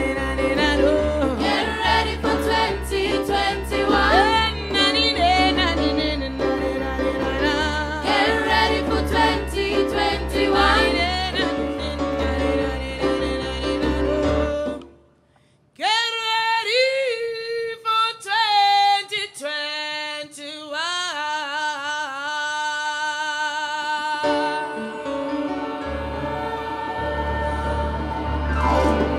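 Upbeat original song sung by a group of voices over a band track with a steady beat and bass. About halfway through, the music stops briefly, then the voices carry on in long held notes without the bass and beat, which come back near the end.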